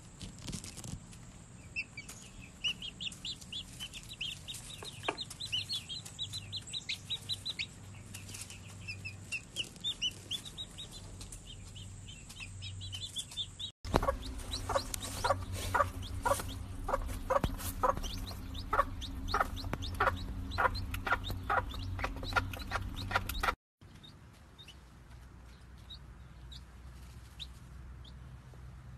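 Hens with their chicks. First the chicks peep in quick high trains. About 14 s in, the sound changes abruptly to a hen clucking in a fast, even run of short calls. Near 24 s it breaks off again, leaving only sparse faint peeps.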